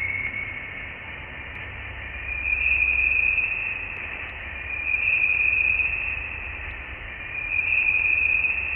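Voyager 1's recording of plasma (ionized gas) beyond the solar system, played back as sound: a high, hissing hum that swells and fades three times, about every two and a half seconds, over a low rumble.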